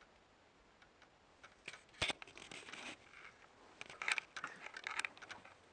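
Footsteps crunching and scraping over debris and litter on a floor: a sharp click and a short crunch about two seconds in, then a quick run of clicks and scrapes near the end.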